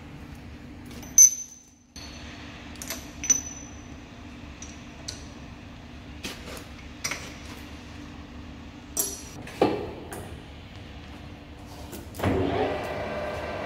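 Sharp metal clinks and knocks of steel tooling being handled and fitted at a lathe tool post, the loudest about a second in. Near the end the lathe spindle starts and runs with a steady hum.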